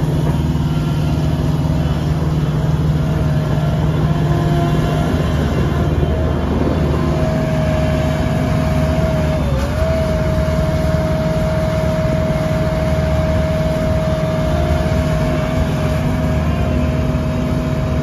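A 2013 JCB 300W skid steer loader's 74 hp JCB diesel engine runs steadily as the machine drives and turns on gravel. A steady high whine sits over the engine note and dips briefly about halfway through.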